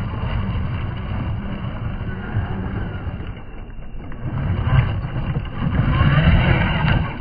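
Radio-controlled 2WD monster truck driving and sliding on loose dirt, its tyres spinning and scattering gravel as the motor runs, with wind on the microphone. The noise eases a little before the middle, then swells again.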